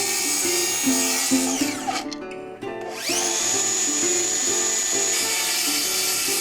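Background music over a cordless circular saw's motor running with a high whine; about two seconds in the whine falls away as the motor spins down, then rises again as the saw restarts about a second later.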